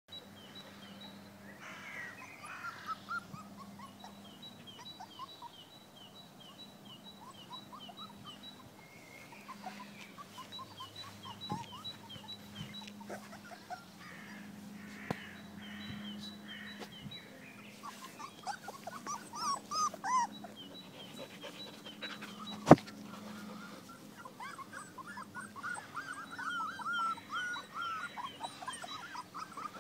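A litter of four-week-old Belgian Malinois puppies whimpering and squeaking in short, high calls that bend in pitch, louder and more frequent around twenty seconds in and again near the end. A sharp knock sounds once about three-quarters of the way through, over a faint high chirp repeating at an even rate.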